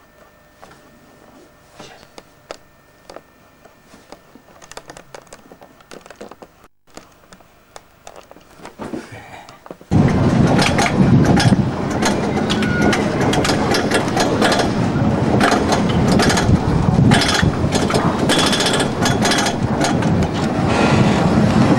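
Low room tone with scattered soft knocks and clicks, then, about ten seconds in, an abrupt cut to a roller coaster ride: the train runs loudly on its track, a dense steady rumble with rapid rattling clicks.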